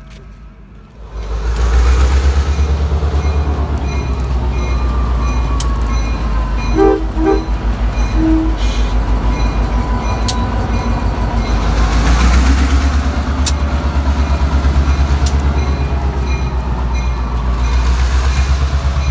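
Chessie System–painted B&O diesel locomotive 3802 passing close by, its engine giving a loud, pulsing low rumble that comes in about a second in. A couple of short horn toots sound about seven seconds in.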